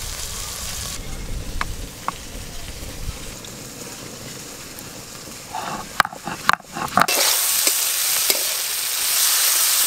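Hand grinding of ginger and cumin on a stone slab, a low rough scraping, with a few sharp knocks. About seven seconds in, small shrimp start sizzling loudly in hot oil in a wok, with a spatula stirring and clacking against the metal.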